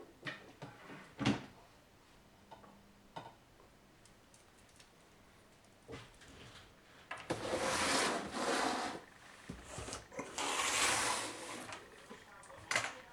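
Handling of a computer case: scattered light clicks and knocks, then two rough rubbing sounds of about a second and a half each, starting about seven and ten seconds in.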